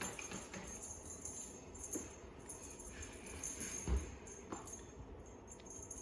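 Small bells jingling in irregular shakes as a kitten plays, with a single low thump about four seconds in.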